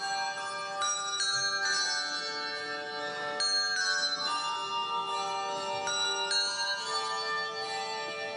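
Handbell choir playing: chords of tuned handbells struck about once a second and left ringing, each new chord overlapping the last.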